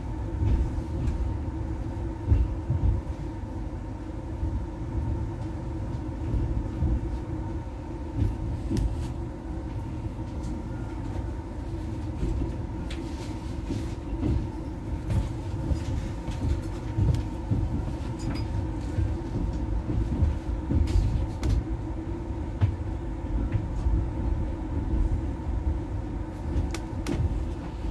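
Steady low rumble of a train running on rails, heard from inside a passenger coach, with a faint steady hum and scattered sharp metallic clicks and clanks.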